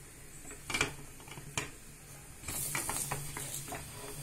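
Light metallic clicks and knocks from kitchen metalware being handled around a pressure cooker: two sharp ones under a second apart, then a run of smaller clicks over a soft hiss from about halfway.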